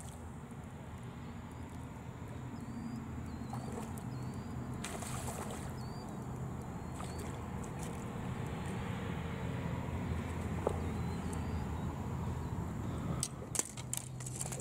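A steady low motor drone, with a hooked bass splashing at the water's surface and a few sharp splashes and knocks near the end as the fish is lifted out by hand.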